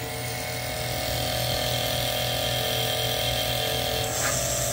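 Electric high-pressure boiler feed pump running with a steady hum. About four seconds in, its airlock valve is opened and a hiss of spraying water joins in as the pump's tone drops slightly: air is being bled out of the pump line once pressure is up.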